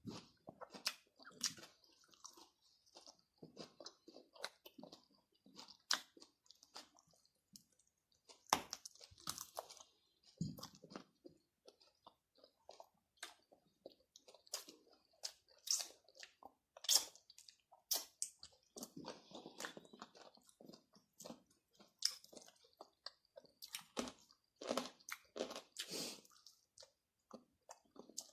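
A person chewing and biting into crunchy food: many sharp, irregular crunches between softer chewing, with no speech.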